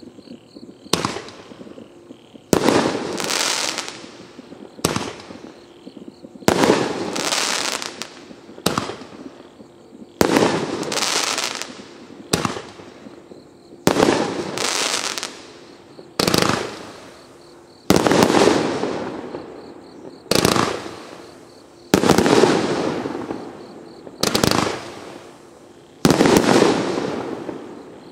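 A 22-shot 500 g consumer firework cake (Fisherman FP6204 Truckload) firing shot after shot, a sudden bang about every one and a half to two seconds, each followed by a fading crackling tail. Softer and louder reports alternate through the sequence.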